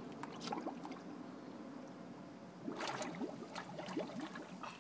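Swimming pool water splashing and lapping as a toddler moves about in the shallows, with a few sharper splashes, the loudest about three seconds in.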